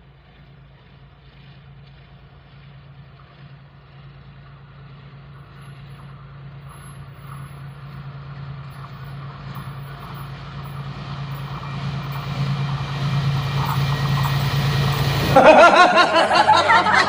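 Diesel locomotive of a freight train approaching, its engine hum growing steadily louder. About fifteen seconds in, a loud, wavering comic sound effect cuts in over it.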